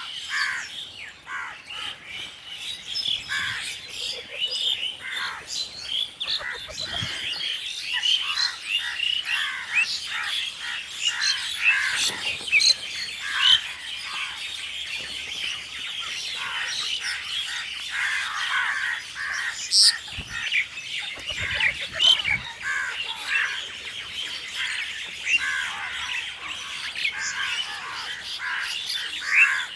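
A flock of crows calling at a feeding: many short, overlapping caws and squawks, with a dense chorus of chirps.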